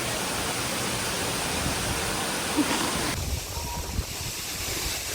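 Sirki waterfall's steady rush of falling water. About three seconds in the rush drops off abruptly, leaving a quieter low rumble.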